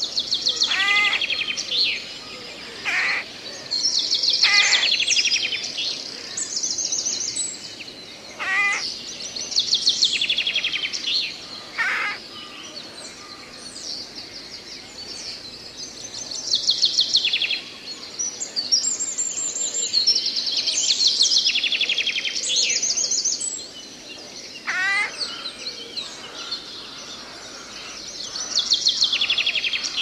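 Forest ambience of several birds singing: rapid high trills come and go every few seconds, and now and then a clear note slides down in pitch, over a steady soft hiss.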